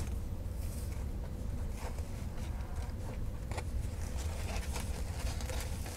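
A steady low hum, with faint, scattered rustles from the plastic-film-covered canvas of a diamond painting kit being handled and turned.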